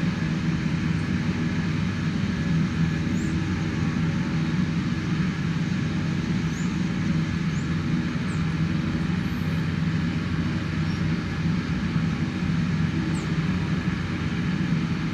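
Beechcraft King Air B200's twin Pratt & Whitney PT6A turboprops running at low power while taxiing: a steady, even drone with a low hum.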